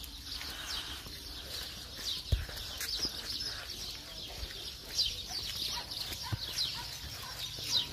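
Small birds chirping over and over in short falling chirps, with a steady low background hum and a couple of dull low thumps.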